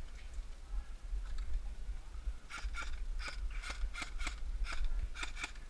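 Airsoft rifle firing a quick string of about a dozen shots, starting about two and a half seconds in and lasting about three seconds, over a low steady rumble.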